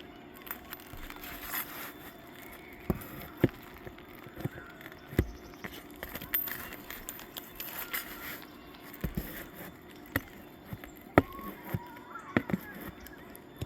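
Irregular sharp knocks and clicks of hand tools working nails out of an asphalt roof shingle, a second or more apart.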